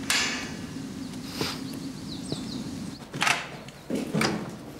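Heavy metal prison doors and bolts: a clank that fades out at the start, then a few sharp metallic knocks and clanks in the second half.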